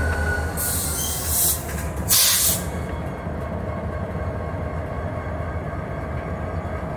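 Norfolk Southern diesel locomotive 3422 rolling slowly by with its diesel engine running in a steady low rumble. Two short, loud hisses come in the first few seconds, the second the loudest, then only the steady engine and rolling sound remain.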